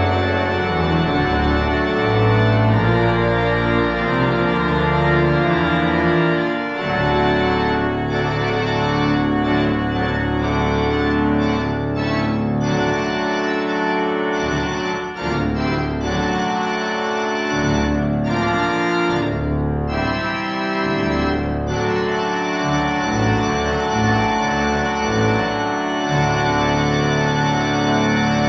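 Church organ playing slow music in full, sustained chords over low bass notes, the chords changing every second or two.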